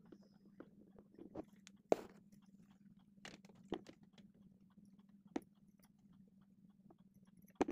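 Shiny plastic-coated cloth and a small craft doll being handled, giving faint irregular crinkles and rustles with a few sharper clicks. A low steady hum runs underneath.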